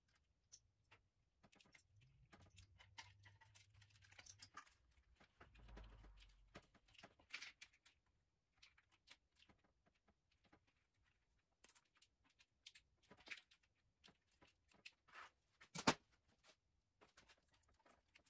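Faint handling sounds of wires and plastic connectors being worked by hand: scattered light clicks and rustles, with one sharper click near the end.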